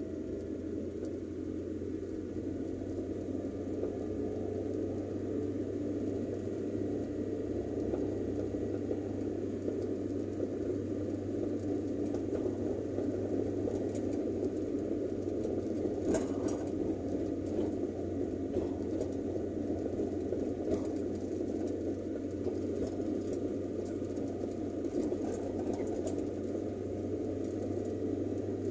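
Steady drone of a car driving on a paved road, heard from inside the cabin: engine and tyre noise. A few light clicks and rattles in the second half.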